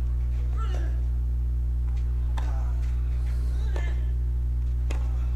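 Steady low electrical hum under a tennis rally on clay: racket strikes on the ball about every one to one and a half seconds, some joined by a short grunt from a player.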